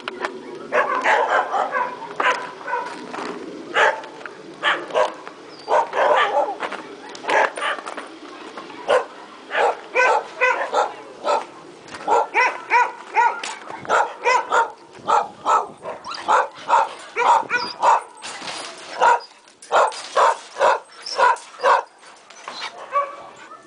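Several caged dogs barking over and over, the barks overlapping at a few a second.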